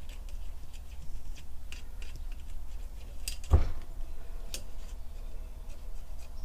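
Scattered small metal clicks from working on an Atlas lathe countershaft, with one louder knock a little past halfway: a light tap to try to shift a stuck part off the shaft.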